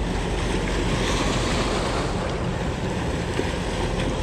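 Steady rushing noise of wind buffeting the microphone together with moving water.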